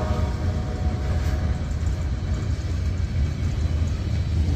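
Freight cars of a Norfolk Southern train rolling past close by at speed, a steady low rumble of steel wheels on rail.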